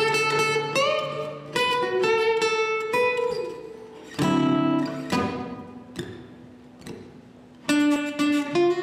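Acoustic guitar playing the introduction to a slow blues: single picked notes ring out and fade, some bent upward. After a lull past the middle, a quicker run of notes near the end.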